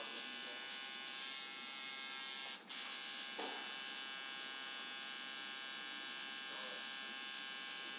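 Electric tattoo machine buzzing steadily, breaking off for a split second about two and a half seconds in, with faint voices in the background.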